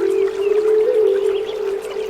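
Flute holding a long low note that steps slightly in pitch, over short bird chirps and the steady rush of running water.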